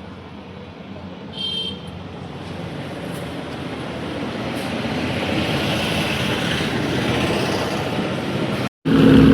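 Road traffic: a vehicle's tyre and engine noise swelling as it approaches, with a short, high horn toot about a second and a half in. Near the end the sound cuts out abruptly and a loud, steady, pitched hum begins.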